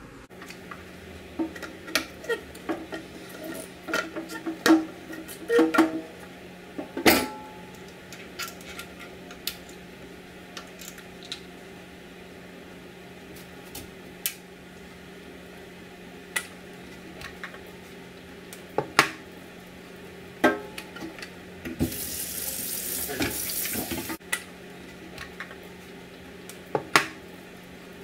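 Instant Pot's stainless steel lid being handled and washed in a stainless steel sink: scattered clinks and knocks of metal and plastic against the sink, with the tap running for a couple of seconds near the end.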